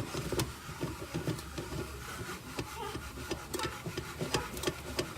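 Popcorn kernels popping in hot oil in a lidded pot, sharp pops coming irregularly, several a second at times, over a low steady rumble.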